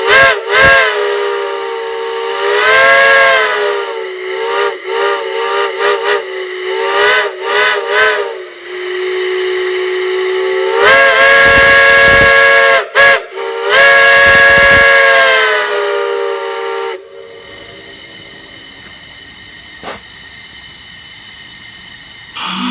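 Large whistle sounding a rich stacked tone, blown in a string of short toots and longer blasts. Each blast's pitch rises as it opens up and sags as it shuts off. The last long blast stops about 17 seconds in, leaving a quieter steady hiss.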